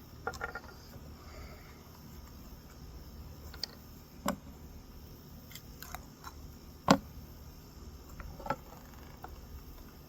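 A plastic bar-oil bottle and the plastic chainsaw oil-fill cap being handled while oil is poured into the saw's oil tank: a few light clicks and knocks, the loudest about seven seconds in, over a faint background.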